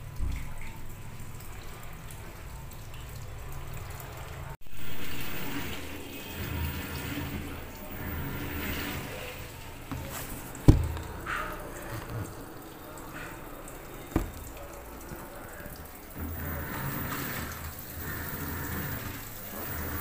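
LG top-load fully automatic washing machine running, with water swishing in the drum over a low steady hum. Two sharp knocks come about ten and fourteen seconds in.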